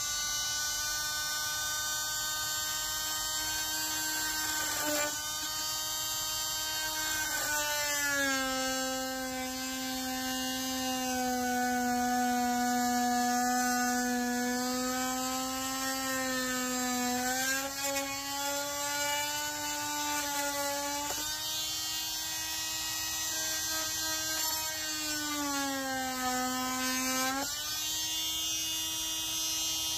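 Oscillating multi-tool running with a steady buzzing whine as its blade cuts into a molded plastic cupholder tray. The pitch drops while the blade is pressed into the cut, from about eight seconds in for nearly ten seconds, and again for a couple of seconds near the end.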